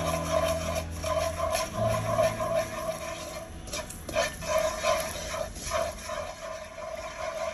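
Sugar melting and bubbling in hot oil in a wok as it starts to caramelise, stirred with wooden chopsticks that tick and scrape against the pan.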